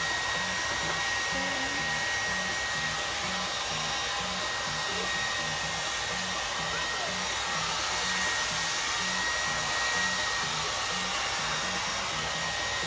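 Handheld hair dryer running steadily: a rush of blowing air with a thin, steady high whine.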